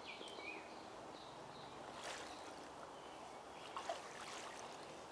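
Small woodland brook flowing, faint and steady, with a few bird chirps early on and a couple of brief rustles later.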